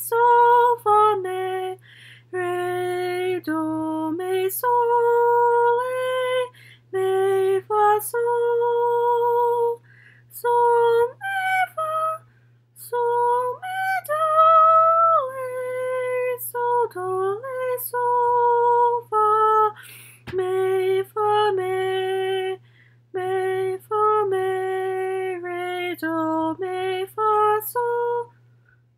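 A woman singing solfège syllables unaccompanied, a run of short held notes stepping up and down in pitch with brief pauses between phrases, as in a sight-singing exercise.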